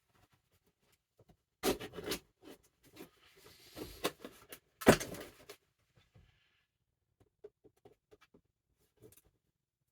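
Packaging being handled while a mail package is opened: rustling and crinkling, with two loud sharp bursts of noise, one near two seconds in and a stronger one about five seconds in, then only light handling ticks.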